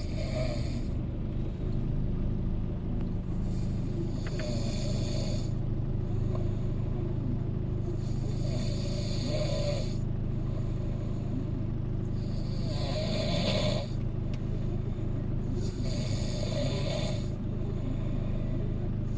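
A person snoring loudly, with five long rasping snores about four seconds apart. They sound over the steady low hum inside a car.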